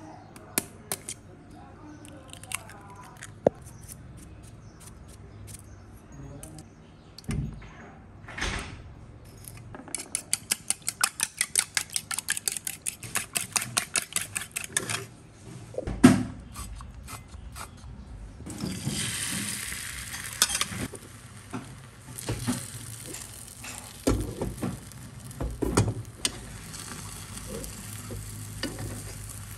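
Kitchen sounds of making an omelette. An egg is tapped open with a fork. Then it is beaten in a ceramic bowl with fast, even clinks of the fork against the bowl, and there is a loud knock. Beaten egg hits a hot nonstick pan with a burst of sizzling, which settles to a low sizzle while the fork scrapes and taps the pan as the omelette is folded.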